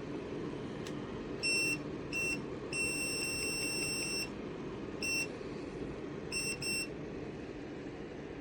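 Button beeper of a QOWETU oscillating ceramic space heater sounding as its controls are pressed: six high-pitched beeps, mostly short, with one long beep of about a second and a half, and the last two close together. A steady low noise runs underneath.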